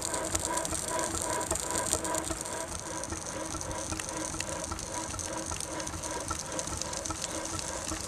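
4½-inch scale Burrell 6nhp agricultural steam engine running steadily, with a regular beat of about two to three pulses a second over a constant hiss of steam and a light rattle of its motion work.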